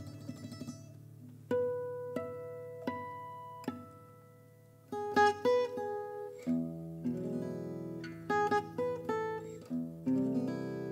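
Selmer-Maccaferri-style gypsy jazz acoustic guitar played unaccompanied at first: a few single plucked notes ring out slowly one after another, then about five seconds in the notes and chords come quicker, with lower notes filling in underneath from about six seconds on.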